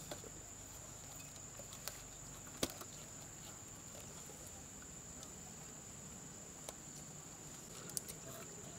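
Faint ambience: a steady high-pitched drone with scattered small clicks and taps, the sharpest about two and a half seconds in and another near the end.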